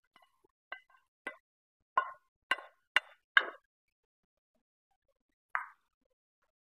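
A utensil knocking against the rim of a frying pan held over a pot, tapping out the last of the fried vermicelli: about six sharp knocks over the first three and a half seconds, growing louder, then one more knock a couple of seconds later.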